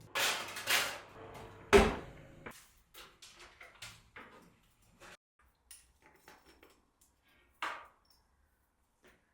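Crockery being handled: two short scraping rustles, a loud knock just under two seconds in, then a run of light clicks and taps, with one more brief scrape near the end.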